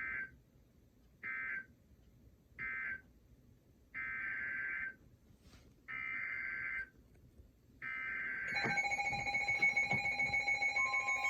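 NOAA Weather Radio's Emergency Alert System (SAME) digital data bursts, a harsh two-tone screech. Three short end-of-message bursts about a second apart close the first flood warning, then three longer header bursts open the next one. About eight and a half seconds in, a pulsing electronic alert tone starts and grows louder.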